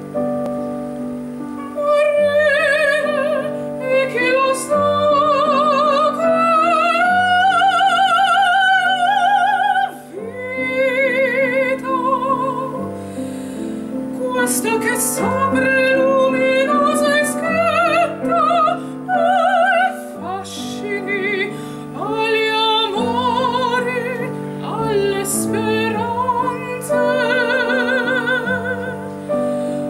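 A woman sings an Italian art song in full operatic style, accompanied by a Yamaha digital piano. Her voice enters over the piano chords about two seconds in, and she holds her high notes with a wide vibrato. There is a short breath-break between phrases near the middle.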